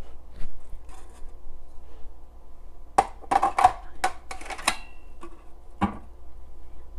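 Hard plastic clicks and knocks as a food processor's feed-chute pusher is worked loose and pulled out. There is a quick run of clicks about three to five seconds in and one more knock near the end. The motor is off.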